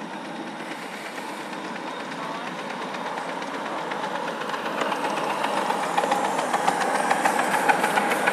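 A 5-inch gauge miniature steam train passing close: the steady rumble of its wagon wheels on the rails grows louder, with rapid clicks over the rail joints from about five seconds in.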